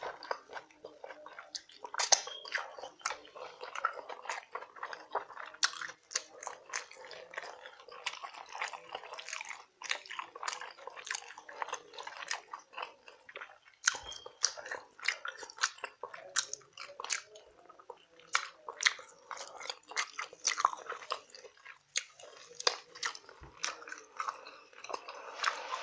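A person eating rotisserie chicken and cucumbers: continuous wet chewing, slurping and lip-smacking, with many short sharp clicks and some crunching.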